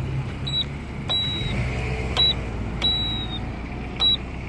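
Campbell crosswalk push button pressed five times at irregular intervals, each press giving a click and a high beep, two of the beeps held about half a second. Low traffic rumble runs underneath.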